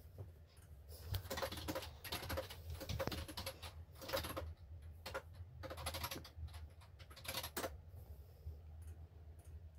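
Irregular runs of soft, rapid clicks and rustles, in clusters over several seconds, with a steady low hum underneath.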